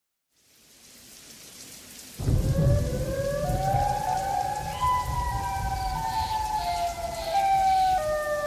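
Intro of a rap track: a rain sound fades in, and about two seconds in a deep rumble and a slow, gliding synth melody enter over the rain.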